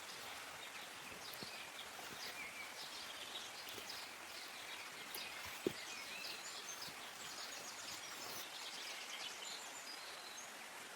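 Small birds chirping and twittering in short high notes over a steady watery hiss, with one sharp tap a little past halfway.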